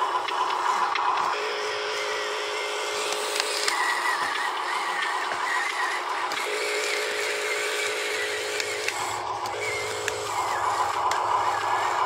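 Huina RC dump truck driving through mud, its electric drive giving a steady whine that switches back and forth between a higher and a lower pitch every two to three seconds.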